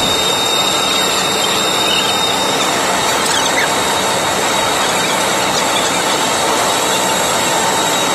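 Loud, steady rushing noise with thin, high whining tones held over it.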